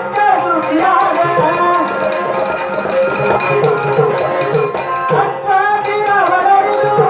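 Devotional bhajan singing by a male singer with a small group, accompanied by a hand drum and small ringing cymbals keeping a steady beat.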